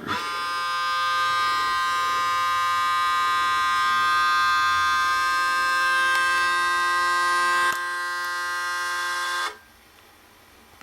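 Audio feedback howl from the camcorder's microphone looping through the connected monitor's speaker: a loud, steady buzzing tone with many overtones. It drops slightly in level near the eight-second mark and cuts off suddenly over a second before the end.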